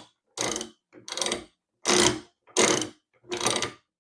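Manual sausage stuffer's gearbox and ratchet disc being cranked in repeated strokes, a ratcheting, grinding burst about every three-quarters of a second. The freshly reassembled gears run a bit tight, as they should with new, unworn parts.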